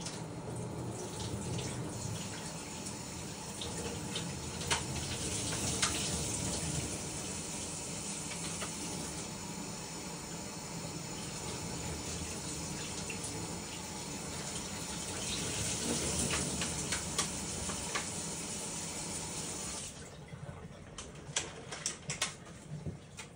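Tap water running steadily while cherries are rinsed under it, with a few small knocks. The tap shuts off abruptly about three seconds before the end, leaving light clicks and taps.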